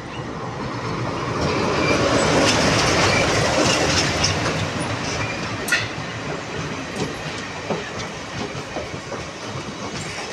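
Diesel-hauled express train passing close by: the WDM3A locomotive goes past loudest about two to four seconds in, then the passenger coaches roll past more quietly, with sharp clacks of wheels over rail joints.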